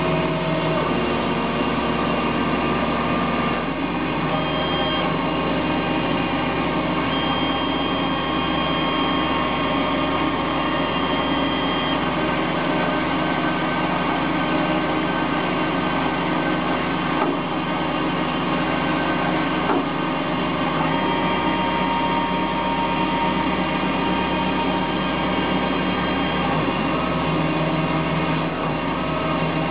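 Emco Turn 120 CNC lathe running: a steady machine hum with whining tones that start, stop and change pitch every few seconds.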